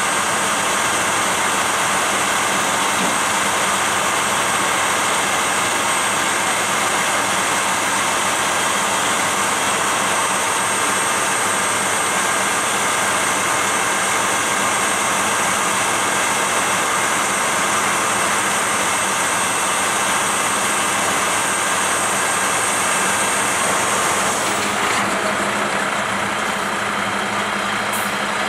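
Heavy engine running steadily, with a steady high whine over it; near the end the highest part of the whine drops away.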